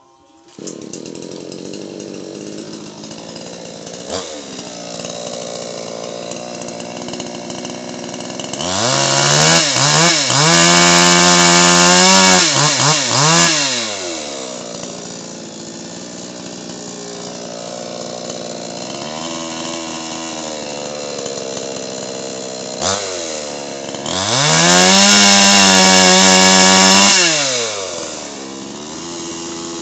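Two-stroke Hoyoma chainsaw with a 22-inch bar. It starts idling about half a second in, is revved to full throttle twice for a few seconds each time, rising to a high steady whine, and falls back to idle after each rev.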